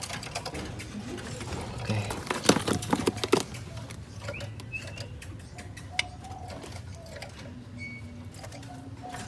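Clattering and knocking of bird cages being handled for the first three seconds or so, then a couple of short bird chirps and low cooing from a dove in the last few seconds.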